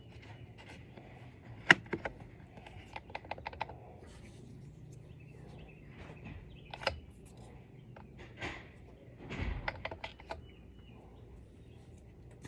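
Irregular sharp clicks and light taps from small hard objects being handled: a loud click about two seconds in, a quick run of clicks just after, another near the middle, and a cluster with a soft thump near the end, over a faint steady hum.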